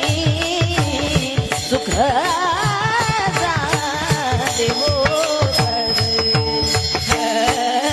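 Marathi kirtan music: a solo voice singing a long, wavering ornamented line over held steady notes, with a hand drum keeping a fast rhythm whose bass strokes slide down in pitch.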